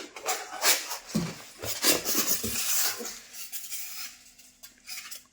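Rustling packaging with light clicks and knocks as ceiling-fan parts are handled and taken out of their box, dying away about three seconds in to a faint hum.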